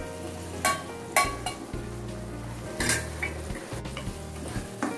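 A spoon scraping tempered chilli-powder oil out of a small steel pan, then a spatula stirring thick chicken gravy in a kadai, over a soft sizzle. A handful of sharp scrapes and knocks against the pans are spread through it.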